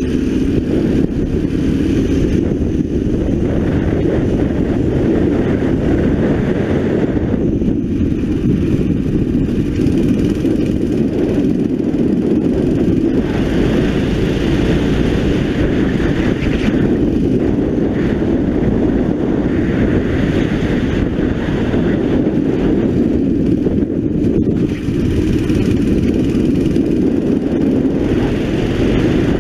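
A 9 hp racing kart engine running hard through a lap, its sound swelling and dropping every few seconds as the kart brakes for corners and accelerates out, under heavy wind noise on the onboard microphone.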